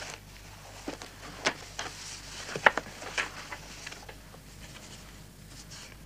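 Paper rustling with a few sharp flicks and light taps as documents in a file are leafed through on a desk, busiest from about one to four seconds in.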